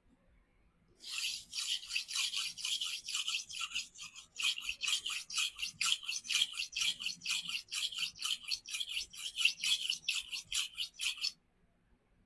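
Steel knife blade stroked rapidly back and forth across the 200-grit face of a resin-bond diamond sharpening stone, a rhythmic scraping of about four strokes a second. It stops briefly about four seconds in, then resumes and cuts off abruptly about a second before the end. This is the edge-refining stage after the coarse 50-grit side has taken out the chips.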